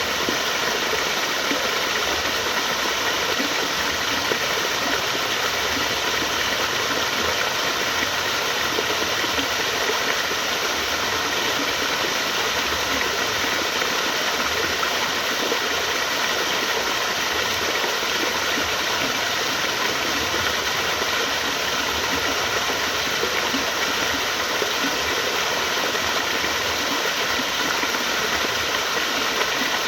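Flowing water rushing steadily and evenly, without a break or change.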